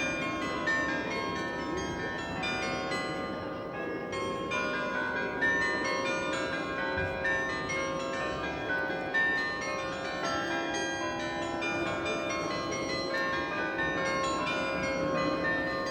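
Church bells of the Nieuwe Kerk in Delft ringing, several bells sounding together in a continuous, overlapping peal.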